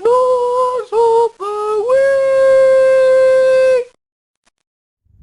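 A single voice singing a short a cappella jingle of four notes, the last held steady for nearly two seconds before it stops.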